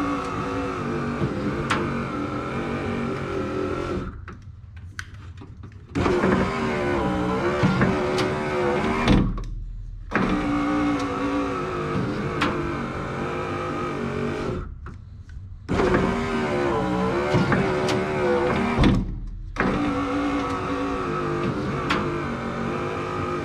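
Mazda RX-7 FC3S power window motor driving the door glass down and up, five runs of a few seconds each with short pauses between and a small thump as the glass stops at the end of some runs. It runs quickly and freely, its door seals freshly greased.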